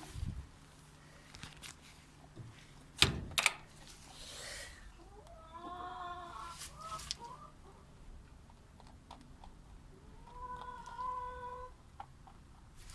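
Backyard chickens calling: a wavering call about halfway through and a steadier, drawn-out one near the end. Two sharp knocks come about three seconds in.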